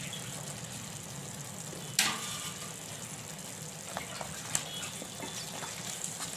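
Thick crab and coconut masala sizzling steadily in a non-stick kadai. A sharp knock about two seconds in, then light clicks as a wooden spatula stirs the pan.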